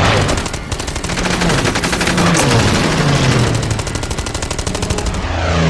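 Long, rapid machine-gun fire in a film battle mix, starting about half a second in and stopping shortly before the end. Under it runs the drone of aircraft engines, dropping in pitch as they pass.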